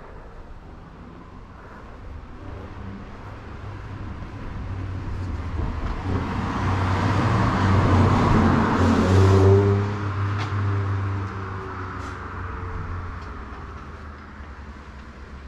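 A motor vehicle drives past on the street. Its engine and tyre noise build for several seconds, are loudest about eight to nine seconds in, then fade away.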